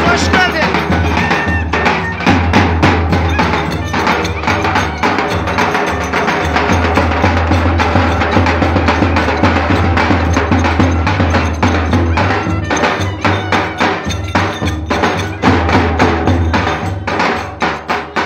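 Lively Turkish köçek dance music: a davul drum and clacking percussion over a steady bass line, the drum strokes standing out more sharply near the end.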